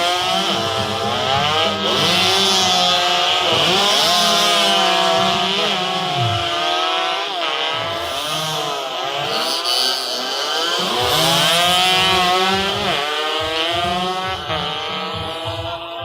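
Several racing motorcycle engines revving hard and passing, their high buzzing pitches rising and falling and overlapping. The sound thins out briefly around the middle before the engines come back in.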